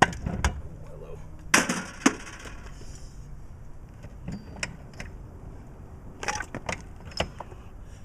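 Rubber mallet knocking on a stuck Mercruiser Alpha One sterndrive outdrive. About a second and a half in, the outdrive breaks free with a scraping slide and a clunk, followed by a few scattered knocks.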